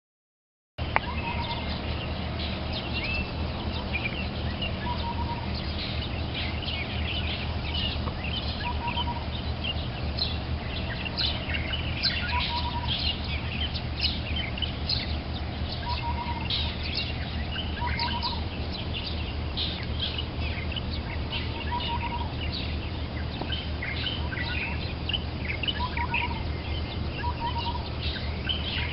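Many birds chirping in a morning chorus, with a short double note repeating every few seconds, over a steady low rumble. The sound begins just under a second in.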